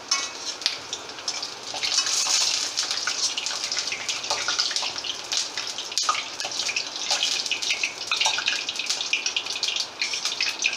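Hot oil sizzling and crackling in an aluminium kadhai around deep-frying semolina pakoras, with clicks of a wire strainer and a metal spatula against the pan as the fritters are lifted out.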